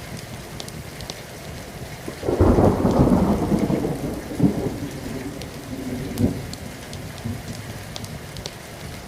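A thunderclap breaks about two seconds in and rolls on as a deep rumble that fades over several seconds, with two more sharp cracks in it, over steady falling rain.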